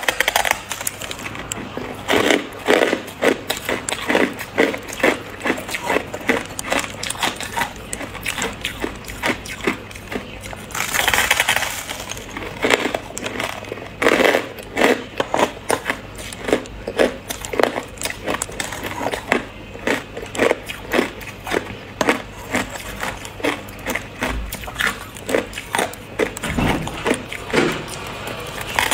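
Hard ice being bitten and chewed: a steady run of sharp crunches and cracks, several a second, with a longer, louder crunch about eleven seconds in.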